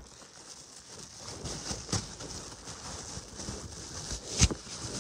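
Handling noise: faint rustling and light clicks, with one sharper click about four and a half seconds in.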